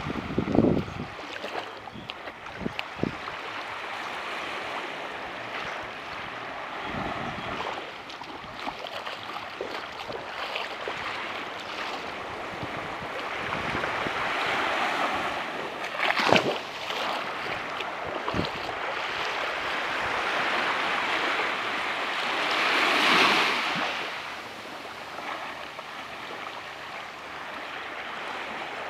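Waves washing onto a beach in a steady wash of surf, swelling louder as bigger waves break twice in the second half. A few sudden short bumps, the loudest just past halfway.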